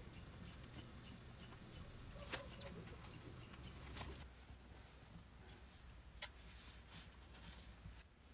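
Crickets chirping in a steady, high-pitched chorus, with a few faint clicks. About four seconds in the chorus becomes much fainter.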